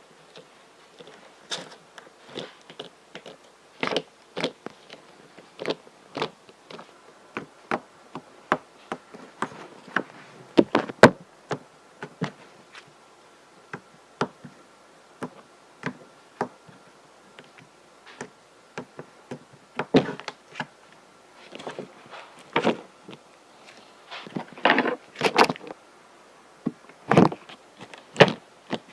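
Slime being squeezed and poked by hand, making irregular sticky clicks and pops, with a few louder clusters of pops near the end.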